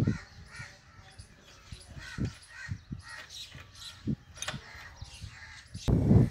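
A crow cawing repeatedly, with a few knocks from spanners working a nut on the air compressor's mounting; near the end the sound turns suddenly louder and busier.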